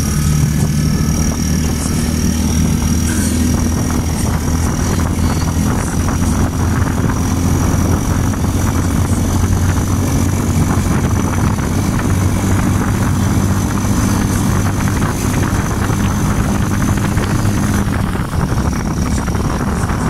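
A vehicle's engine running at a steady speed while driving along a paved road, a continuous low hum under rushing road and wind noise heard from on board.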